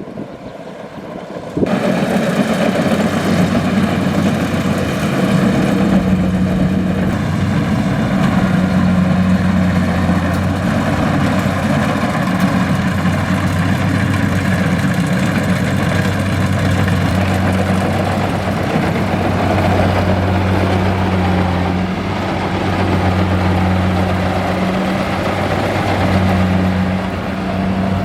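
Kubota DC-70 combine harvester's diesel engine running steadily with a low hum. It cuts in suddenly about two seconds in, after a brief stretch of wind noise.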